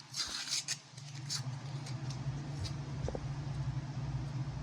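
Steady low hum with light crinkling and a few faint clicks of hands handling the battery pack's plastic wrap and tape, strongest in the first second.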